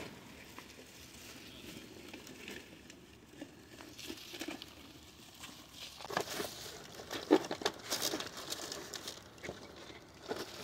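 Rummaging in a plastic tackle box: crinkling and rustling of blister-packed fishing tackle, with light clicks and knocks from the plastic trays. It gets busier about halfway through.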